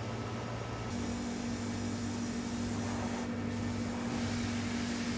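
Steady mechanical hum of running machinery, with a low droning tone; the sound shifts slightly about a second in.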